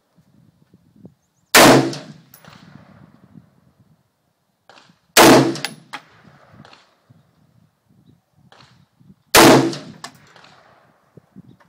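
AR-15 rifle fired three single shots about four seconds apart, each a sharp crack with a short echoing tail. Faint clicks and handling noises sound between the shots.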